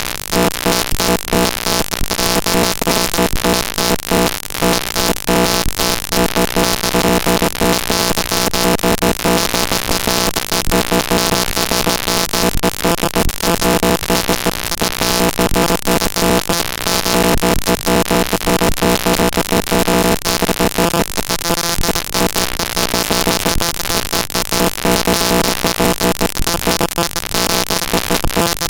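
Network packet-capture data (tshark's text output) played directly as raw audio samples: loud, continuous buzzing noise with steady droning tones under a rapid, flickering crackle.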